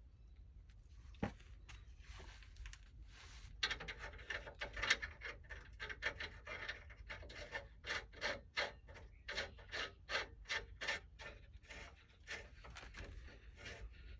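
Ratchet wrench tightening Loctited bolts, worked in short back-and-forth strokes at about two a second, starting a few seconds in after a single knock.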